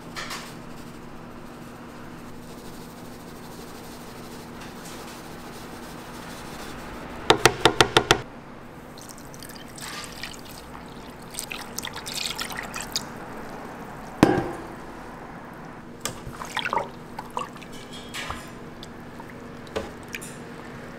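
Sauce being mixed in a stainless-steel pan: a quick run of about six sharp knocks, then water poured in, a single loud knock, and wet squishing as the mix is stirred with a spatula.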